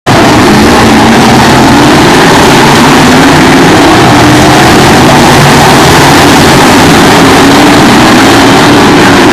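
A field of oval-track stock cars racing past at full throttle, several engines at once, loud and steady, with engine notes rising and falling as the cars pass.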